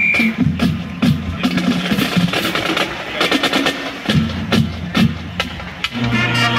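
Marching band percussion playing a steady drum beat, with pitched bass-drum strokes under sharp snare hits. Near the end the brass comes in with held chords.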